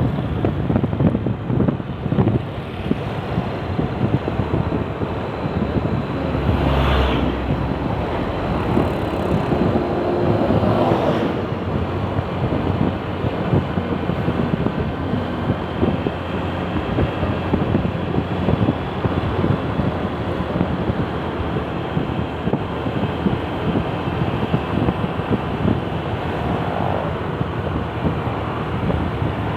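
Strong wind buffeting the microphone over road traffic noise, with vehicles passing by, two of them more clearly about seven and eleven seconds in.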